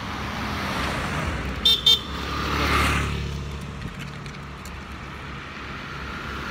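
A small hatchback car drives past, its engine and tyre noise swelling to a peak about three seconds in and fading away. Two short horn toots sound just before the peak, and a low engine hum carries on afterward.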